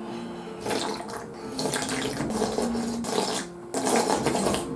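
Slurping homemade duck broth from a lacquered soup bowl, in three long noisy slurps with short breaks between them.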